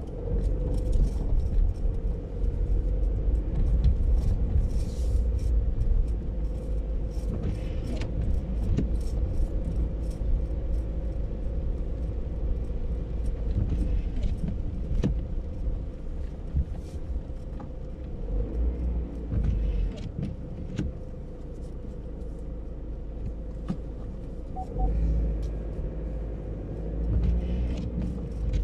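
Car driving slowly over a snowy, slushy road, heard from inside the cabin: a low engine and road rumble that swells and eases, with a steady hum and scattered clicks and crackles.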